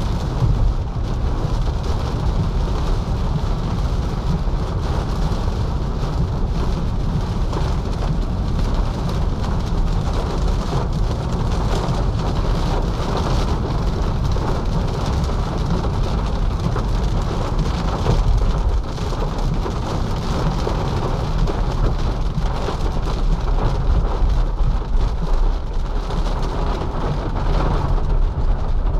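Heavy rain drumming steadily on a car's roof and windscreen, heard from inside the cabin, with a steady low rumble underneath.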